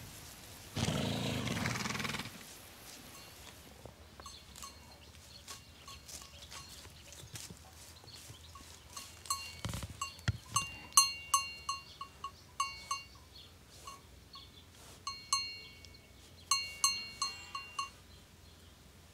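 Livestock bells clanking irregularly, each strike ringing with a few clear tones, in quick runs through the middle and again near the end. A short breathy rush comes about a second in.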